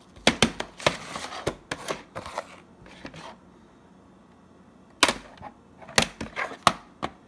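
A plastic VHS cassette being handled: it scrapes and rustles as it comes out of its box, then its plastic shell clicks and knocks sharply several times as it is set down and turned on a wooden table, with a short quiet gap in the middle.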